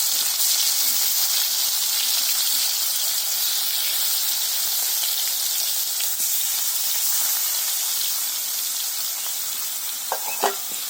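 Pieces of fish, marinated with salt, chili and turmeric, frying in hot oil in a kadai: a steady sizzle that eases a little toward the end.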